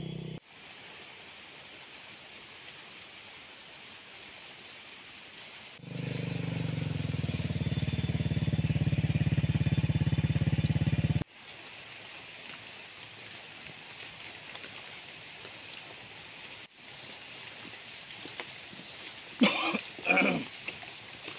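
A motorcycle engine idling steadily for about five seconds, between stretches of faint outdoor background. Brief voices come in near the end.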